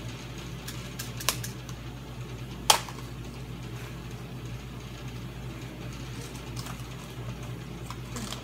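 Scattered clicks and taps of kitchen utensils, a wire whisk in a glass mixing bowl and spoons at the cupcake pan, with one sharp clink about two and a half seconds in, over a steady low hum.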